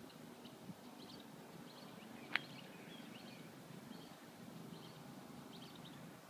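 Quiet backyard ambience: faint, scattered bird chirps over a low steady hum, with one sharp click about two and a half seconds in.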